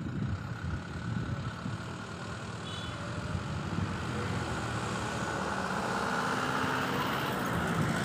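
Road vehicle noise: a steady engine-and-traffic rumble that slowly grows louder.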